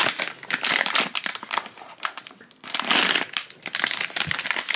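A crinkly plastic blind bag rustling and crinkling as hands handle it, with a short lull about two seconds in before the crinkling resumes.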